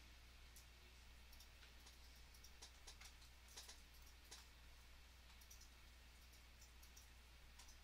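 Near silence with faint, scattered clicks from working a computer mouse and keyboard, a few close together around the middle, over a steady low electrical hum.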